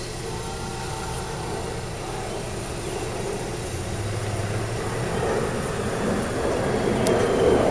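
Steady low vehicle hum heard from inside a vehicle, with a broad rumble swelling over the last few seconds.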